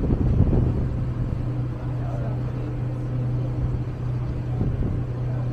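Boat engine running steadily: a low, even hum.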